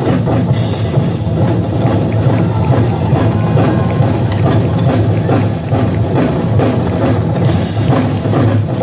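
Live music with drumming and percussion, many quick strikes over a steady beat.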